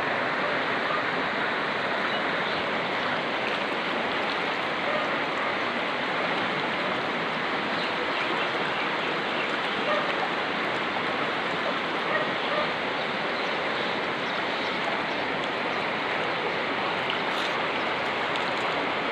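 Fast-flowing floodwater of a swollen river rushing past in a steady, even wash of water noise.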